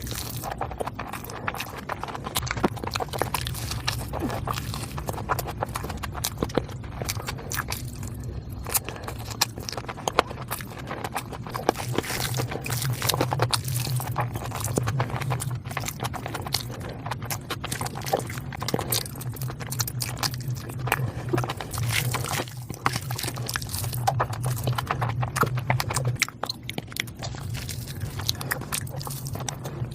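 A person chewing food close to the microphone: irregular mouth clicks and smacks, over a steady low hum.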